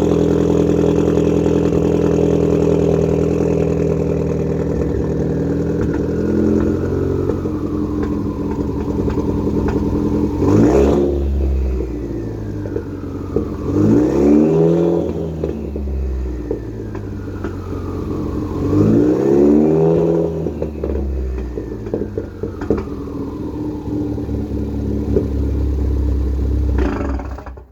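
Ford Focus ST's turbocharged engine on a catless exhaust, idling after a cold start and revved three times. A thin, falling turbo whistle trails each rev as the engine drops back to idle. The sound cuts off suddenly at the very end.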